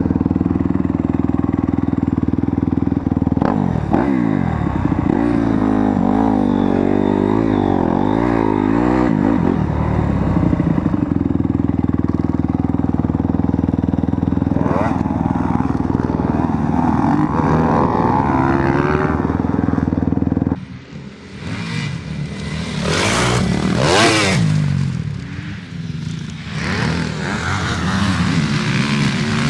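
Motocross dirt bike engines running and revving on a track, their pitch rising and falling as the throttle is worked. About 21 s in the sound drops away suddenly, then a bike comes past close and loud a couple of seconds later.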